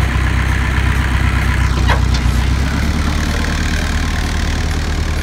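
Tow truck engine idling steadily, with one short knock about two seconds in.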